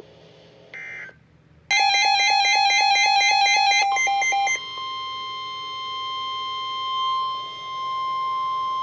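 Emergency alert signalling on a weather radio: a short burst of digital data tone just under a second in, then a rapidly pulsed electronic alarm beep for about three seconds, overlapped by and giving way to the steady high 1050 Hz NOAA Weather Radio warning alarm tone, which signals that a new warning message is about to be read.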